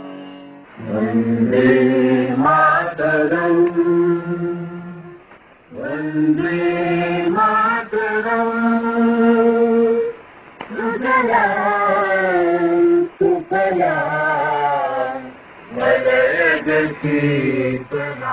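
Sung chant: a voice holds and bends long notes in four phrases of a few seconds each, with short breaks between them.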